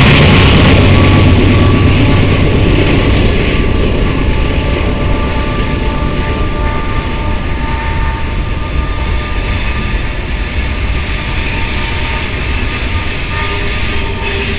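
BNSF freight train passing close below. The diesel locomotives' low engine rumble fades over the first few seconds as the last locomotive goes by. It leaves the steady rolling noise of boxcars on the rails, with a few faint thin whining tones.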